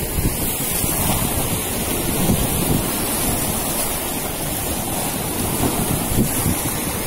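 Sea wind buffeting the microphone over breaking surf: a steady, loud rushing.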